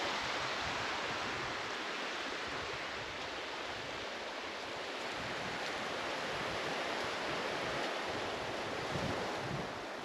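Steady wash of surf on the beach mixed with wind, heard as an even rushing noise with some wind on the microphone.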